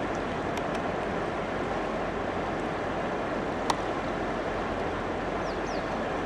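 Steady rush of whitewater river rapids, with one sharp click about halfway through.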